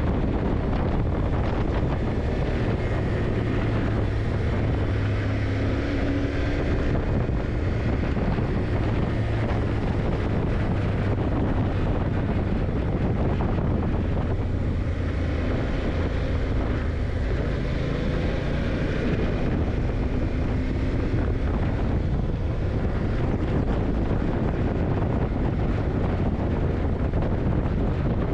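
Yamaha TDM900's parallel-twin engine running while the motorcycle is ridden, its pitch drifting slowly up and down, with steady wind noise on the microphone.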